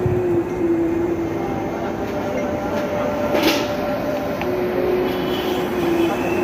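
Loud, steady street noise with a sustained mechanical hum that drops out for a while mid-way and comes back, and a short sharp noise about three and a half seconds in.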